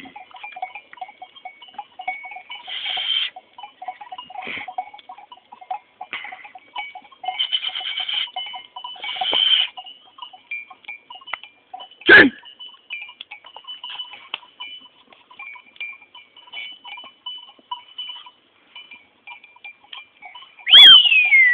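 A flock of goats on the move, with small bells jingling and goats bleating now and then. There is a brief loud call about twelve seconds in, and a loud whistle falling in pitch near the end.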